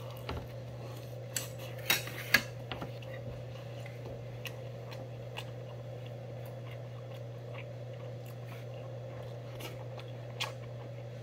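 Stainless steel spoon and chopsticks clinking against metal rice bowls and a metal tray: several sharp clinks in the first two and a half seconds, then a few faint ones, over a steady low hum.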